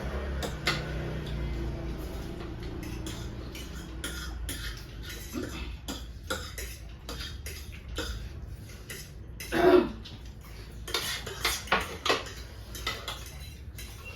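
Forks or chopsticks clinking and scraping against bowls as several people eat ramen noodles: a run of short clicks and clatters, with one louder burst a little under ten seconds in.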